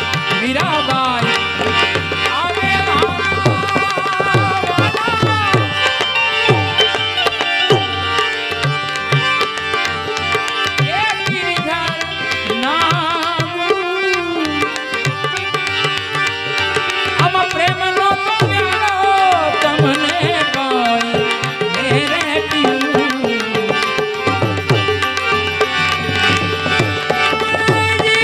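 Santvani devotional music: tabla drumming under a bending melody line over a steady held drone.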